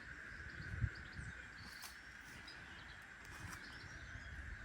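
Outdoor rural ambience: scattered short bird chirps over a steady high hum, with low rumbling and a single sharp thump about a second in.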